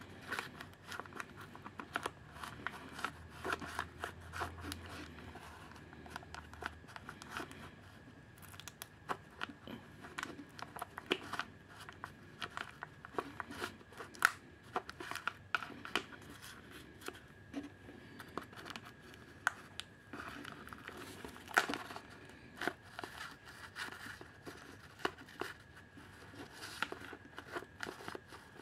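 Irregular crinkling, rustling and small sharp clicks of a clear plastic ink absorber housing and its felt pads being handled and worked into place.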